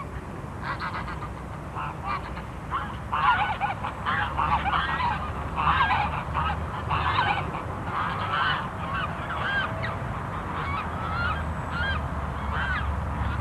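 A flock of white domestic geese honking, many calls overlapping and coming thick and fast, busiest through the middle.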